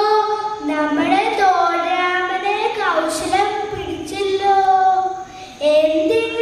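A child singing solo into a microphone through a PA, holding notes and sliding between pitches, with a short pause for breath about five seconds in.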